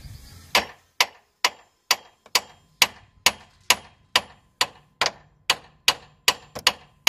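Steel hammer striking the tie rod end's ball stud on a Peugeot 307's steering knuckle: a steady run of sharp metal-on-metal blows, about two a second, knocking the old tapered stud loose from the knuckle arm.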